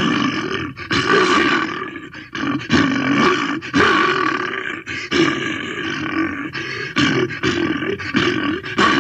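A bear roaring in a rapid string of loud, rough roars, each about a second long, that start and stop abruptly.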